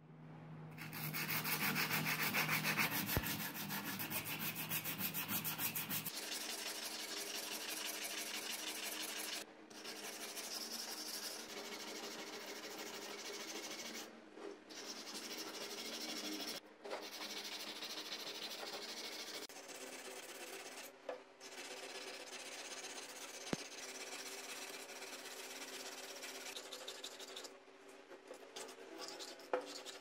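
Hand sanding of old ceiling fan metal parts: abrasive rubbed quickly back and forth on the steel motor cover and fittings, a steady scratchy rasp broken by a few short pauses.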